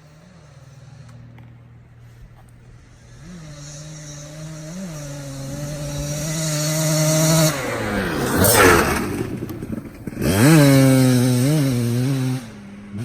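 Kawasaki KDX 200 two-stroke dirt bike being ridden, its engine note building as it comes closer with short throttle blips. About eight seconds in it goes past with a falling pitch, then revs hard again and eases off near the end.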